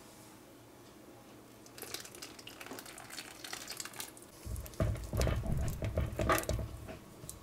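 Milk and melted butter poured from a saucepan onto flour in a mixing bowl, then a wire whisk beating the batter fast, knocking against the bowl from about halfway through; the whisking is the loudest part.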